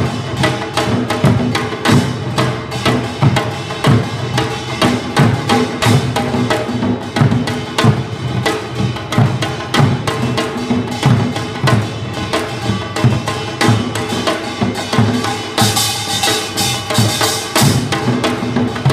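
Korean traditional drums, a janggu hourglass drum and buk barrel drums, played together in a fast, driving rhythm, with strong beats about once a second among many quicker strokes. About three seconds before the end, a brighter, hissier layer joins in.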